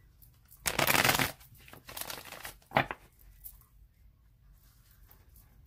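A deck of tarot cards being shuffled by hand: one burst of shuffling about a second in, a shorter burst near the three-second mark, and a few light taps between.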